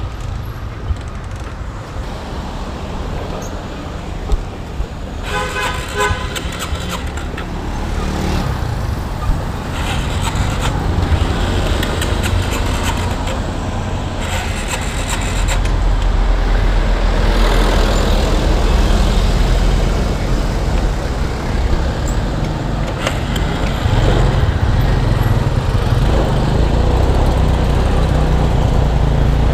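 Scooter rolling on a city street with road and traffic noise, and a vehicle horn honking about six seconds in. About fifteen seconds in, the scooter's engine catches and settles into a steady low running note after it had refused to start.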